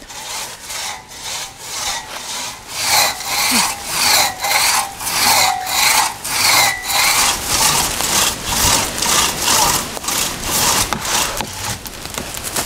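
Two-man crosscut saw pulled back and forth through a dead black birch trunk: an even rhythm of rasping strokes, about two a second, that grows louder a few seconds in.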